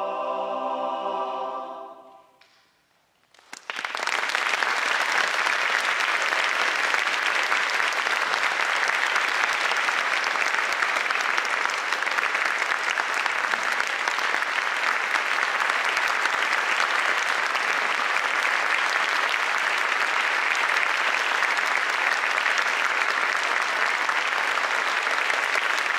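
A men's choir holds its final chord, which dies away about two seconds in; after a brief silence the audience breaks into steady applause.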